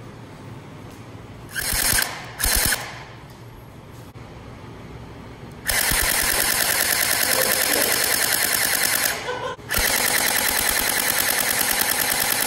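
Electric gel blaster firing on full auto: two short rattling bursts about two seconds in, then two long bursts of several seconds each, split by a brief pause.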